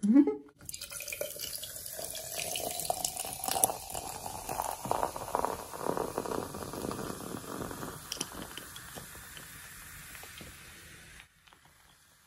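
Diet Coke poured from a can over ice into a glass jar, splashing and fizzing with many small crackles as the foam rises. The pitch of the pour rises as the glass fills, and the sound cuts off suddenly near the end.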